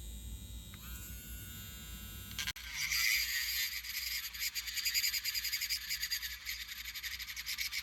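A small hand-held power tool spins up with a thin, steady whine about a second in. About 2.5 s in, its bit starts grinding into a cured resin 3D print, a loud, high, raspy grinding that carries on.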